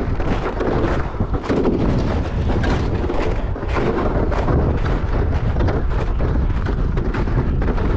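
Wind buffeting the microphone in a steady low rumble, with footsteps crunching through snow.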